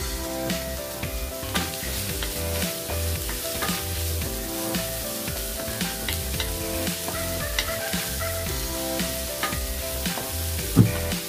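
Vegetables sizzling in a stainless steel wok as a wooden spatula stirs and scrapes them, with frequent sharp knocks of the spatula against the pan and one louder knock near the end.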